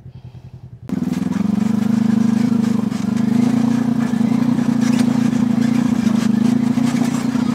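Off-road side-by-side (UTV) engine running, getting much louder suddenly about a second in and then holding a steady low engine note, with light rattling from the rough, rocky trail.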